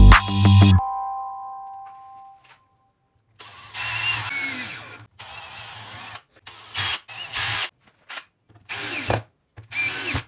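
Background music fades out in the first two seconds. After a short silence, a power tool runs in a series of short bursts, the first lasting under two seconds and the rest briefer, stopping and starting.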